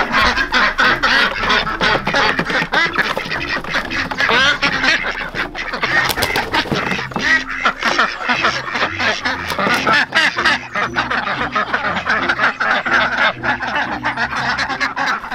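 A flock of domestic ducks quacking, many calls overlapping in a continuous clamour that eases off near the end.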